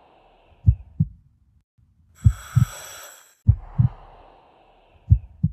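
Heartbeat sound effect: four pairs of low lub-dub thumps, one pair about every one and a half seconds, alternating with a falling airy whoosh and a hissing swell with a high ringing shimmer.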